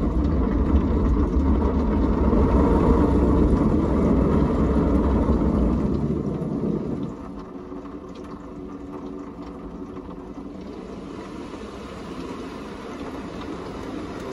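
Drive-through car wash machine running around the car, heard from inside the cabin: a loud, steady rumbling whir that drops off sharply about seven seconds in, leaving a quieter hum.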